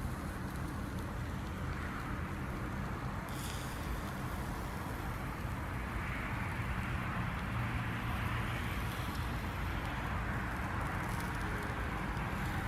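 Food sizzling on a small portable grill over a fire: a steady hiss that grows a little stronger partway through, over a low steady rumble, with one brief click about three seconds in.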